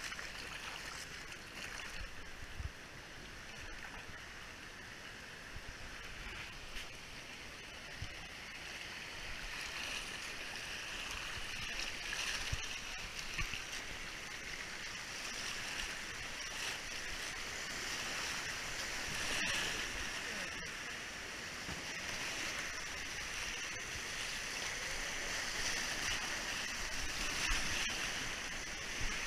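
Creek water rushing and splashing over shallow rocky riffles around a floating river tube, growing louder toward the end as the current turns to white water.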